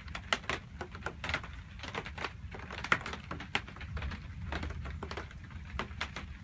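Light rain: irregular drops ticking and tapping, a few loud individual drips standing out, over a low steady background hum.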